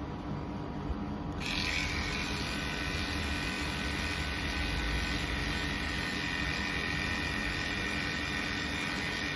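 Electric pet clippers with a #10 (1.5 mm) blade running steadily while shaving matted fur from a cat's armpit. About a second and a half in, the buzz turns brighter and hissier and stays that way.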